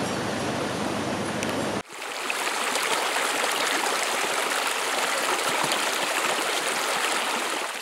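Shallow rocky mountain stream rushing steadily over stones. It starts abruptly about two seconds in, after a short stretch of duller outdoor background noise.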